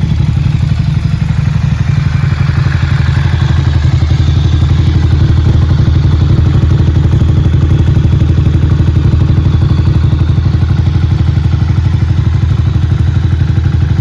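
Ducati Monster 695's air-cooled L-twin engine idling steadily through a GPR exhaust with the dB killer removed, loud and evenly pulsing, with no revs.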